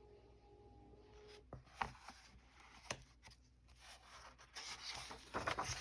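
Faint paper rustling and a few soft taps as a coloring book's pages are handled and turned, growing busier near the end.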